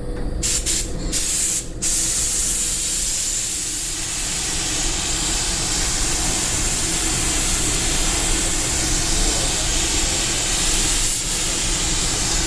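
Compressed-air paint spray gun hissing: a few short bursts in the first two seconds, then one continuous spray as another coat of paint goes on.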